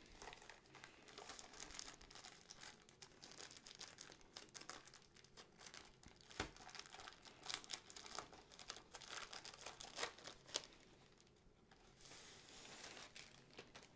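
Thin wrapping around a rolled canvas being crinkled and torn open by hand: a quiet, irregular run of crackles and rustles that eases off near the end.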